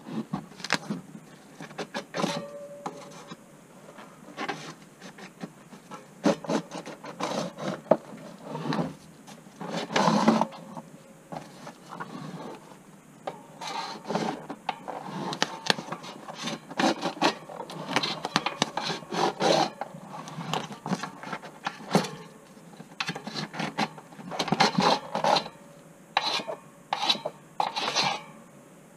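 Schwalbe Magic Mary 29 x 2.6 tubeless mountain-bike tyre being worked off its rim with a plastic Tyre Glider lever: irregular rubbing and scraping of the rubber bead against the rim and tool, with some short, sharp scrapes.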